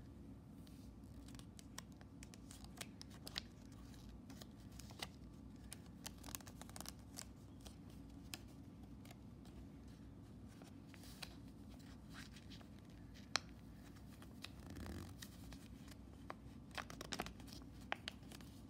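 A sheet of origami paper being handled, folded and creased by fingers: faint scattered crinkles and sharp little paper clicks over a low steady background hum.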